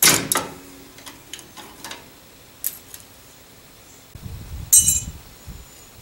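Metal tools and parts clinking during drum-brake work. There is a sharp clink at the start that rings briefly, a few light taps, then a bright ringing clink near the end over low shuffling handling noise.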